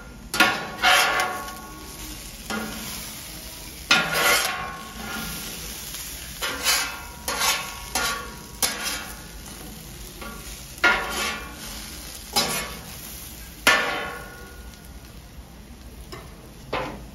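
Metal griddle spatula scraping across the steel plate of a Camp Chef flat-top griddle, pushing cubed potatoes together into a pile: about a dozen uneven scrapes, each with a short metallic ring, over a light sizzle of frying potatoes.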